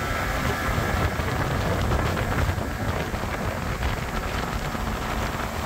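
Evinrude 115 outboard driving a fishing boat at speed, under a steady rush of wind on the microphone and water along the hull.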